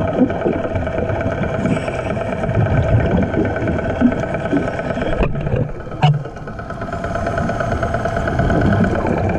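Steady drone of an engine running, heard underwater, with low rumbling beneath it. It drops out briefly with a sharp click about five seconds in, then comes back.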